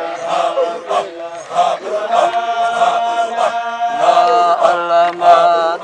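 A group of men chanting a Sufi Qadiriya dhikr in unison, holding long notes together.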